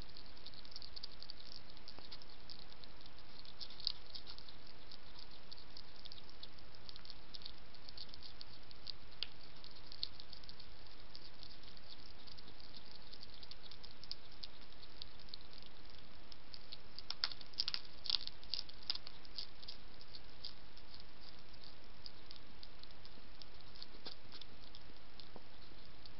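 European hedgehog crunching dry kitten food: irregular sharp crunchy clicks, with a quick flurry of louder crunches about two-thirds of the way through, over a steady hiss.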